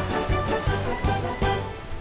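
Background music with a steady, bouncy beat.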